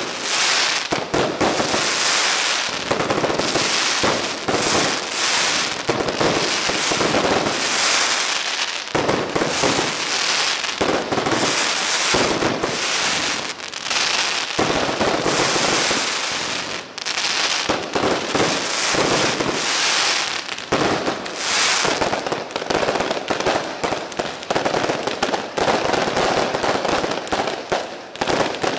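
Aerial fireworks going off in a dense, unbroken barrage of rapid crackling and bangs.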